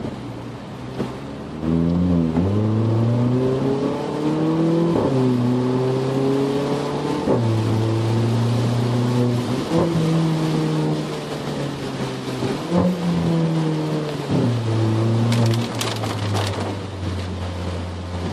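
Volkswagen Polo GT TSI's turbocharged petrol engine and exhaust accelerating hard through the gears, heard from inside the cabin. Its pitch climbs and then drops back sharply at each of several quick gear changes. A few sharp clicks sound near the end.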